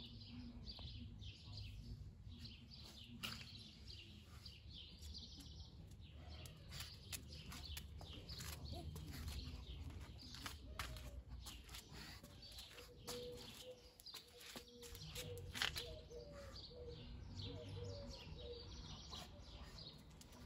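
Quiet outdoor ambience with birds chirping in the background and scattered light clicks and taps. A faint steady hum comes in about midway.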